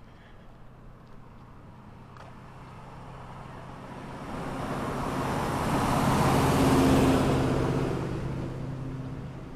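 A motor vehicle drives past, its engine and tyre noise growing louder to a peak about seven seconds in, then fading.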